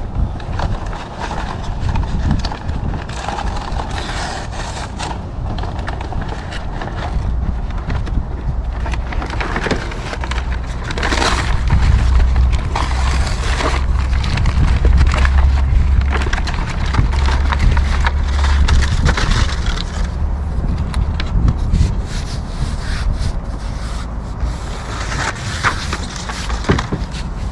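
Hands rubbing and pressing a SeaDek closed-cell foam pad down onto its pressure-sensitive adhesive and peeling back its wax-paper backing: a run of scraping, rubbing strokes. A steady low rumble runs underneath and is strongest in the middle of the stretch.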